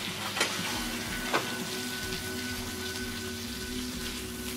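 Barbarie duck breast and its fat sizzling in a frying pan, with two light clicks of a spoon against the pan in the first second and a half. A faint steady hum joins about halfway through.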